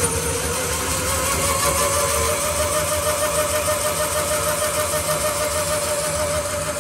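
DoALL 2013-V vertical band saw running with no cut, its motor and blade drive giving a steady hum and whine. The whine climbs in pitch over the first three seconds as the speed is brought up, then holds steady.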